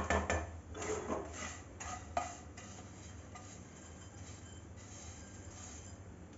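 Spatula scraping and clinking against a pan as roasted vermicelli is scooped out, several strokes in the first two and a half seconds; after that only a faint low hum.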